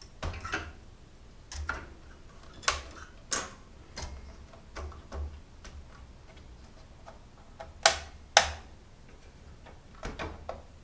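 Plastic retention latches of server DIMM memory slots being flipped open: a scattered series of sharp clicks, the two loudest close together about eight seconds in.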